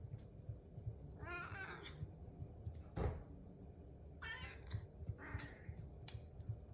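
House cats meowing, three short meows, calling for their breakfast. A single sharp knock comes about halfway through.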